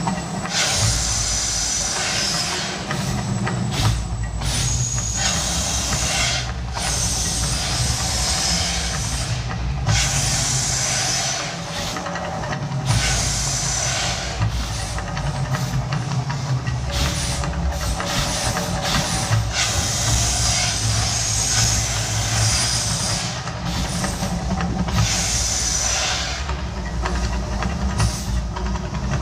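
Mirage Volcano fire jets firing in repeated hissing bursts, each about a second long, over a continuous low rumble.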